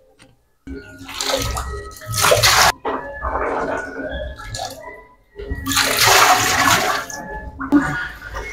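Shallow water splashing and swishing as a broom and dustpan work the floor of a nearly drained pond, in several bursts of a second or two each.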